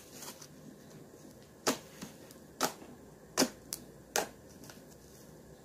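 Four sharp pops, a little under a second apart, with a fainter one between the last two, over quiet room tone.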